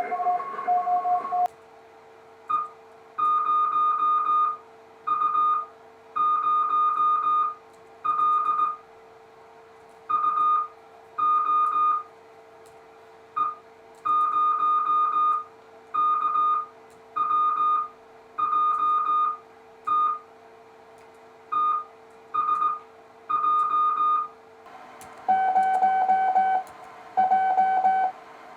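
Morse code (CW) tones from Morse-training software on a computer: a single steady beep keyed on and off into short dots and longer dashes, in groups with pauses between characters. Near the end the tone switches to a lower pitch. A faint steady hum runs underneath.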